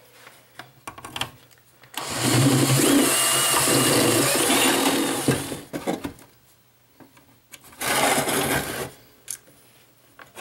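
Small handheld power tool running a bit into the metal chassis of a tube tuner to enlarge the hole for a new power cord. It runs once for about three and a half seconds, with a wavering motor whine over the cutting noise, then gives a second, shorter burst of about a second.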